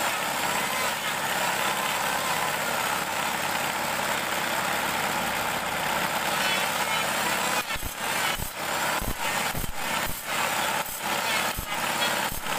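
Table saw running steadily while sharpening a bandsaw blade. In the last third a run of regular short knocks breaks into the noise, a little under two a second.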